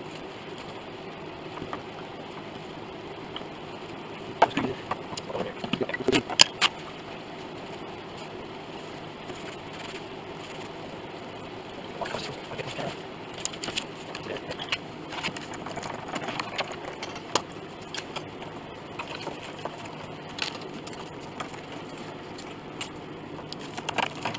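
Scattered knocks and clicks of tools, wooden blocks and clamp parts being handled against a steel clamping beam and a piano soundboard during gluing, over a steady low hum. The loudest knocks come in a cluster about four to six seconds in, with lighter taps through the second half.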